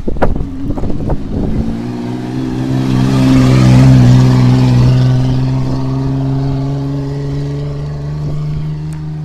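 Off-road 4x4 race vehicle driving past on a dirt track, its engine a steady note that swells to its loudest about four seconds in and then slowly fades. Irregular knocks on the microphone come before the engine, in the first second or so.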